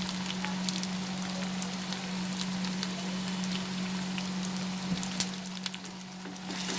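Onion and spice masala sizzling in hot oil in a pan, a steady crackle with scattered small pops. A steady low hum runs underneath.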